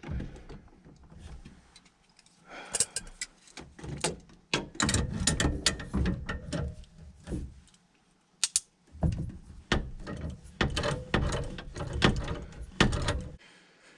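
Metal hand tools clicking and clanking on gas pipe fittings in several bursts of rapid clicks, as a wrench works the gas line loose.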